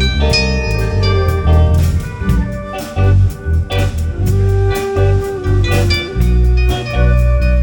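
A band playing an instrumental passage: guitar notes over heavy bass notes and a drum kit.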